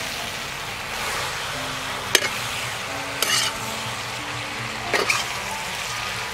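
Sponge gourd and quail sizzling in a hot wok while a metal spatula stirs them, scraping sharply against the pan about three times.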